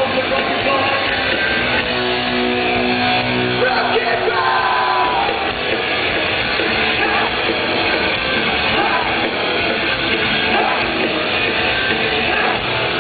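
Punk rock band playing live, with singing over the music and some yelling, heard from the crowd through a low-quality camcorder microphone that cuts off the high end.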